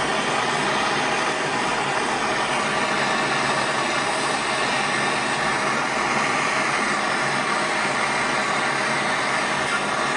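MAPP gas torch burning with a steady, even hiss, heating a stuck screw and the aluminum part around it to free the screw.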